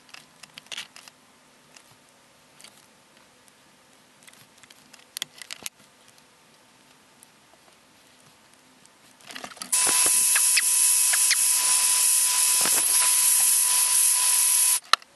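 A hair dryer blowing to dry wet paint on a miniature's base, a loud, steady rush of air with a steady motor whine. It switches on suddenly after about ten quiet seconds of faint taps and clicks, and cuts off about five seconds later.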